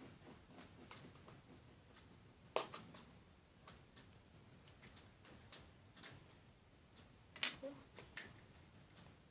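A few scattered small, sharp clicks of the hard plastic Kinder Surprise toy capsule being handled and pried at with the fingers.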